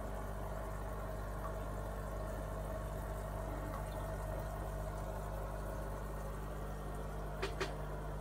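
Aquarium filter and pump running with a steady hum over trickling, bubbling water. Two short clicks near the end.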